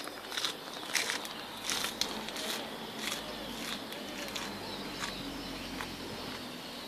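A person chewing a fresh Gynura procumbens leaf: a run of irregular crisp crunches, thinning out toward the end, over a faint steady high tone.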